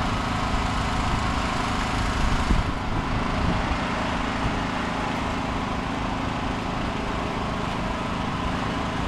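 A small engine running steadily, with a brief louder bump about two and a half seconds in.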